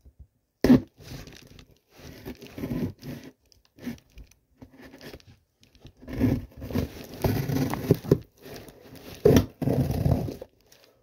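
Cardboard shipping box being handled and torn at: irregular scraping, crinkling and tearing noises, busier in the second half, with one sharp knock about a second in.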